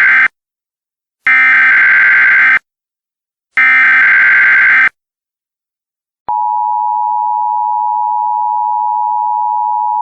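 Emergency Alert System SAME header tones: the tail of one warbling data burst, then two more about a second and a half apart. After a short gap, about six seconds in, the steady EAS attention tone begins and holds.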